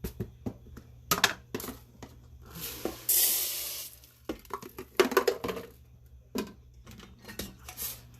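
Kitchen clatter of pots, lids and utensils being handled, sharp knocks and clinks scattered through, with a loud hissing rush for about a second near three seconds in.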